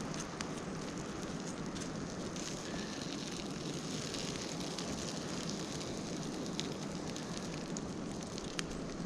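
Bacon and bologna sizzling on a steel shovel blade over a campfire, a steady hiss with scattered crackles and pops from the burning wood.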